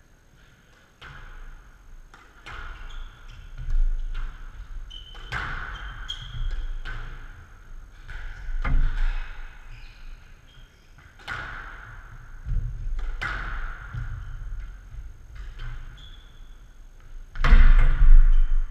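Squash rally: the ball cracks sharply off racquets and the court walls again and again, with brief shoe squeaks on the court floor and running footfalls. Near the end comes the loudest sound, a heavy low thud.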